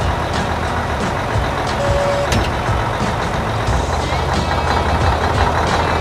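Steady vehicle engine sound effect from an animated farm machine, with a single short beep about two seconds in.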